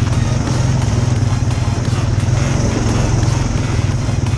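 ATV engine running steadily as the quad is ridden along a rough dirt trail, a low, even drone.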